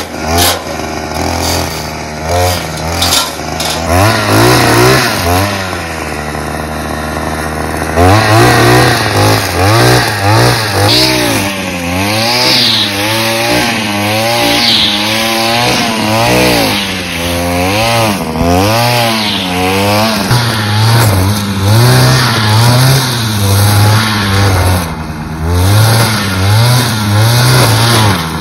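Bolat BY 520 two-stroke petrol chainsaw running, fairly steady for the first several seconds, then revving up and dropping back again and again every second or two.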